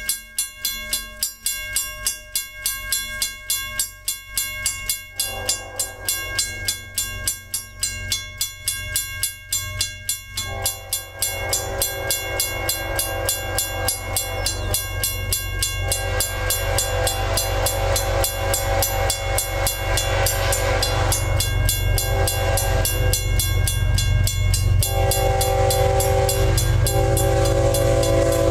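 A grade-crossing bell rings about twice a second. About five seconds in, the horn of BNSF diesel locomotive 8276, leading an approaching freight train, begins sounding in long blasts with a few short breaks. The low rumble of the locomotives and wheels grows louder as the train nears.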